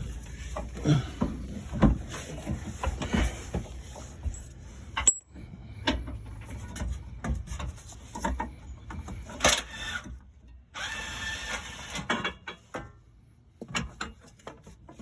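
Ratchet wrench clicking in irregular runs, mixed with scattered metal knocks, as the 15 mm bolt on a fuel tank strap is worked loose.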